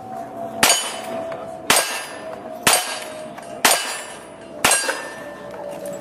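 Five single-action revolver shots fired at steady intervals of about one a second, each followed by a short metallic ring from the steel plate targets.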